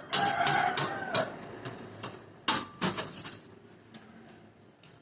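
A small child's voice making a chicken-like call in answer to a prompt, mixed with a few sharp clicks.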